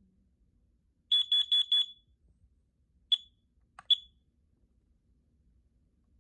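Battery-powered carbon monoxide alarm beeping: four quick high-pitched beeps in a row, the four-beep pattern CO alarms use for their alarm signal, then two single beeps about a second apart.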